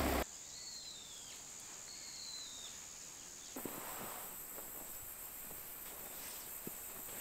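Vehicle engine noise that cuts off abruptly right at the start, then a quiet countryside bed of insects chirring in a steady high drone. Two short falling bird calls come in the first three seconds, and a few light knocks follow later.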